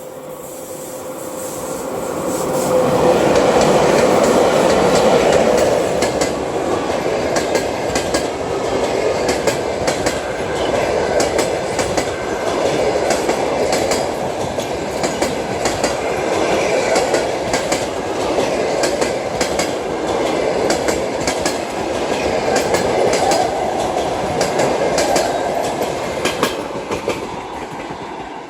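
A passenger train hauled by a ChS7 two-section DC electric locomotive running past. Its sound grows over the first three seconds, then the wheels click over the rail joints in quick, uneven succession, easing off near the end.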